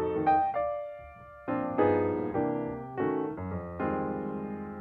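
Intro background music: a piano melody of struck notes that fade, with a brief lull about a second in before the playing resumes.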